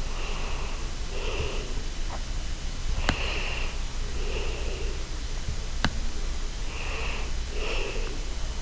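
A person sniffing and breathing close to the microphone, about six short puffs that come roughly in pairs, with a couple of sharp clicks in between.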